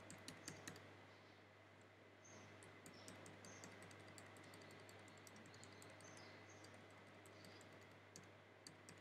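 Near silence with faint, irregular clicks from working the computer while scrolling through slides, densest in the first second, over a low steady electrical hum.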